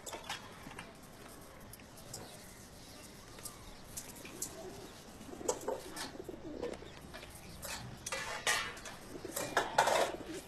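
Birds calling in short, scattered bursts, the loudest near the end.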